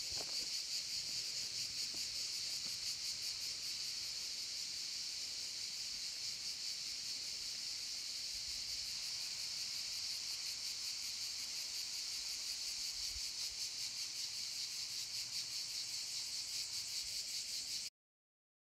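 A steady, high-pitched chorus of insects with a fast, even pulsing shimmer, cutting off suddenly near the end.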